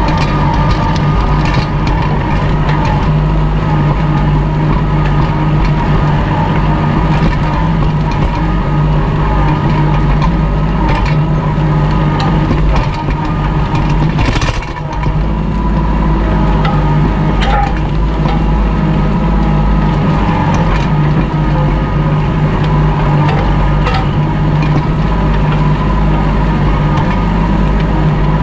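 Kubota L2501 tractor's three-cylinder diesel engine running steadily under load while it pulls a disc harrow through grass and soil. Occasional short knocks are heard, and the level dips briefly about halfway through.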